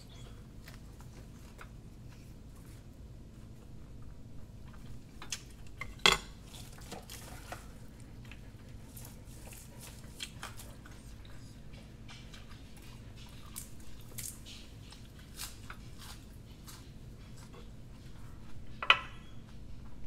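Close-up eating sounds: chewing crisp grilled pork belly, with light clicks of chopsticks against the plate and griddle. Two louder clatters come about six seconds in and near the end, over a low steady hum.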